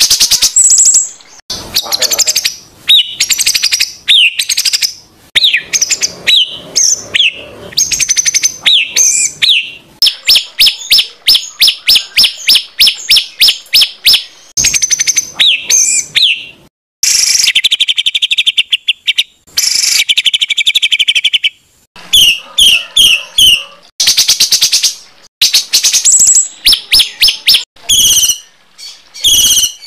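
Loud songbird song in fast phrases of rapid repeated notes, downslurred whistles and harsh buzzy rattles: the harsh 'tembakan' bursts used to train competition songbirds. Short breaks separate the phrases.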